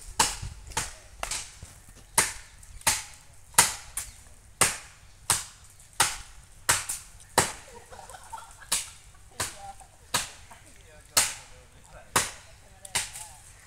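Hand-swung blade chopping into a coconut palm: a steady series of sharp, cracking strokes, about one and a half a second.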